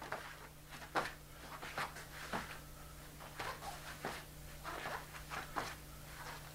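Bare hands and feet tapping and shuffling on a foam mat, with gi cloth rustling, in a quick irregular series of soft taps, over a faint steady hum.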